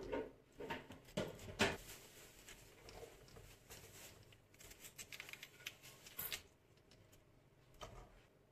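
Small kitchen knife cutting florets off a raw cauliflower's stem: crisp crunching and snapping, with several sharp crunches in the first two seconds, then a run of fainter crackling cuts, and one more small knock near the end.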